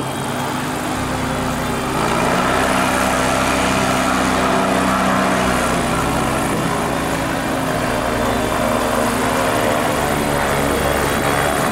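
Diamond DA40 light aircraft's piston engine and propeller running steadily as it taxis past, getting louder about two seconds in.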